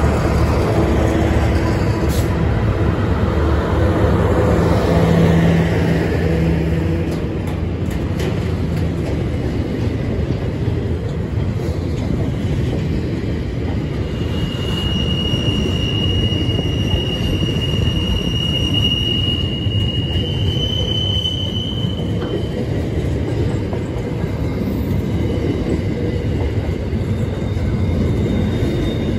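Freight train passing: the last of four SCT CSR-class diesel locomotives runs by, its engine note fading over the first several seconds, then boxcars roll past with steady wheel-on-rail noise. A high wheel squeal sets in about halfway through and holds for several seconds, with a fainter squeal near the end.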